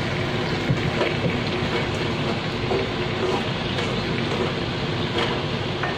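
Pork legs sizzling in hot oil in a nonstick wok while a plastic spatula stirs them, with a steady frying hiss and a few light knocks of the spatula against the pan.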